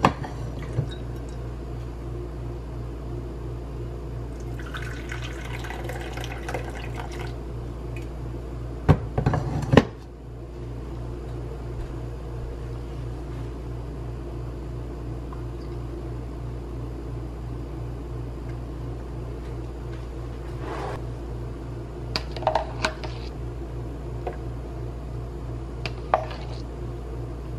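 Coffee and frothed milk poured into a porcelain cup, the main pour about five seconds in, over a steady low hum. Two loud knocks come near the middle, and a few light clinks of china follow near the end.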